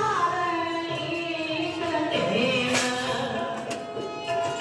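Devotional singing with instrumental accompaniment, in the manner of Sikh kirtan: a voice holding long, wavering notes over instruments.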